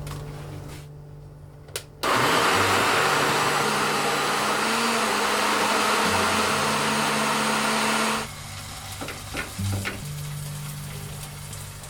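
Electric blender running for about six seconds, starting abruptly about two seconds in and cutting off suddenly, puréeing ingredients for a curry paste. Background music plays underneath.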